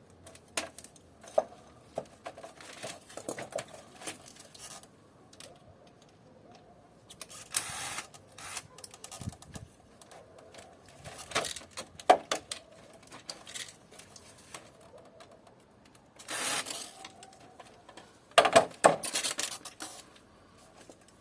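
Intermittent clicks, knocks and short rustling scrapes of plastic and metal parts being handled and pulled apart while an air conditioner is dismantled for scrap, with a few louder bursts of rustle and clatter about 8, 16 and 19 seconds in.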